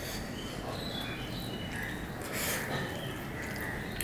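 Fingers mixing and squeezing biryani rice on a plate, soft squishes with a brief louder rustle about two and a half seconds in. Faint high-pitched chirps in the background.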